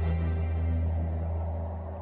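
Background music: a deep, steady low drone with held tones, slowly fading near the end.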